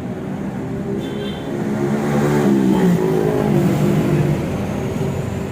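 Small motorcycle engine running and being revved, its pitch rising and falling and its level swelling for a couple of seconds midway before settling back to idle.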